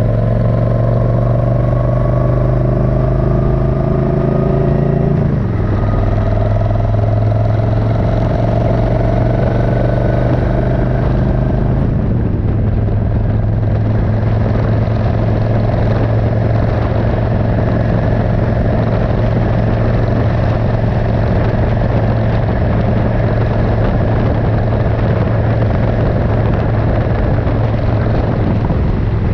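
Suzuki Intruder 1400's 1360 cc V-twin running under way, the engine note climbing, then dropping about five seconds in and again about twelve seconds in, as on upshifts, before holding steady at a cruise.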